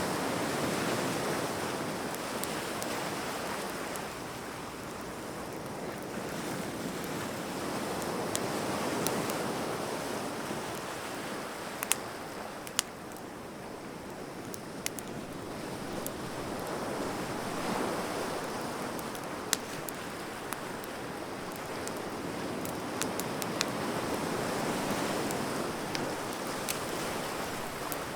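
Surf washing on a beach, swelling and fading about every eight seconds, with sparse sharp pops and crackles from a burning wood bonfire.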